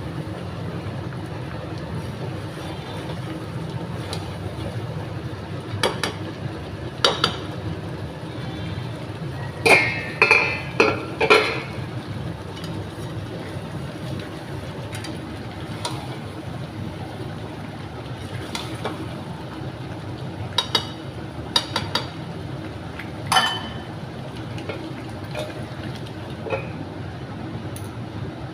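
A utensil stirring a pot of simmering chicken liver and gizzard curry, with scattered sharp clinks and knocks against the pot (a quick run of four about a third of the way in), over a steady low hum.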